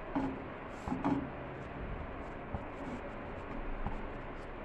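A spatula knocking and pressing a bread slice on a ridged grill pan a few times in the first second and a half, with lighter taps later, over a steady low hiss.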